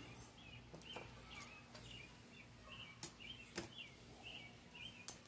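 A small bird chirping steadily in the background, short high chirps a little more than two a second. A few sharp metal clicks, the loudest sounds, come as transmission gears and a pry tool are handled on a metal tray.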